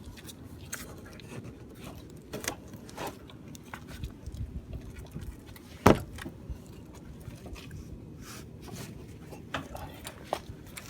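Scattered metallic clinks and taps of hand tools and parts being handled, with one sharp, much louder knock about six seconds in.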